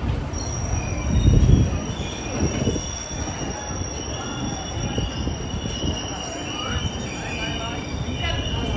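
Indian Railways express train coaches rolling past, wheels squealing on the rails in several high, wavering tones over a steady low rumble.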